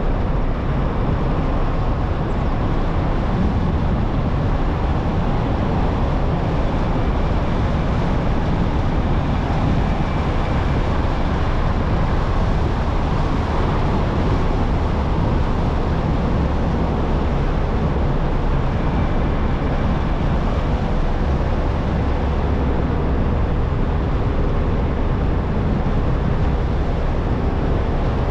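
Car driving steadily along an asphalt road: a constant, deep rumble of road and wind noise.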